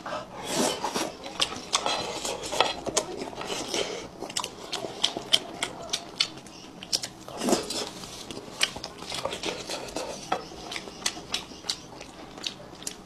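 Wooden chopsticks clicking and scraping irregularly against a metal platter while picking through fish in broth, with close-miked eating and chewing sounds.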